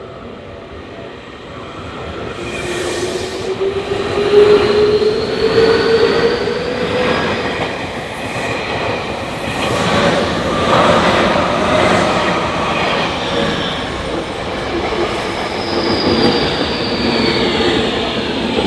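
Tokyu Toyoko Line electric train passing over a level crossing: it grows loud over the first few seconds, with a rising whine, wheels clacking over the rail joints, and a high wheel squeal twice.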